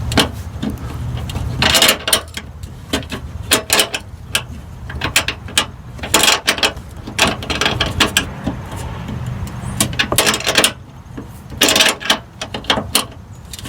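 Ratchet wrench clicking in short irregular runs as a fender flare retainer nut is worked from underneath the wheel well, mixed with scattered knocks.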